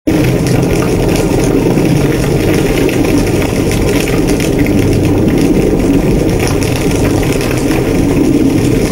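A large house fire burning: a steady low rumble of flames with scattered crackles.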